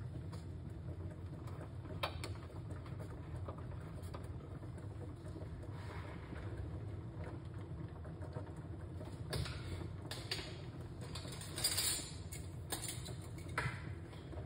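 A covered aluminium cooking pot on a lit stove, making a steady low rumble with a few brief clicks and rattles, the loudest about three-quarters of the way through.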